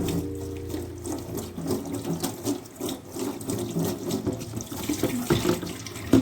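Tap water running and splashing into a sink, with background music.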